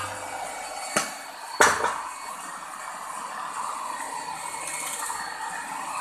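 Electric hand mixer running steadily while churning cultured cream into butter in a steel pot, the butter grains already separating. Its beaters knock sharply against the pot twice, about a second in and again half a second later.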